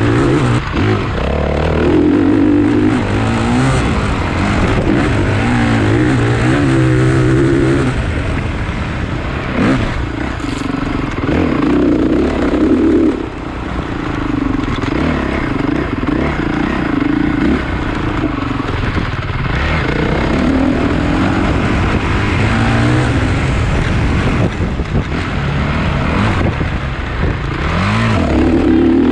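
Motocross dirt bikes racing, engines revving hard, their pitch climbing and dropping back again and again.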